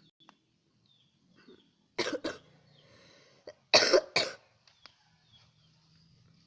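A person coughing: two short fits, about two seconds in and again about four seconds in, each with a double stroke.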